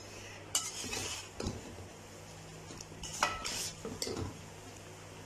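A metal slotted spoon scraping and clinking against a metal pot as freshly steamed sweet rice is stirred and fluffed, in a few separate short scrapes.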